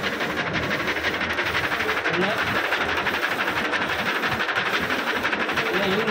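A 60 cm dual-head DTF printer and its powder shaker running: a steady mechanical clatter and whir, with a faint pulse about once a second as the printhead carriage sweeps back and forth across the film.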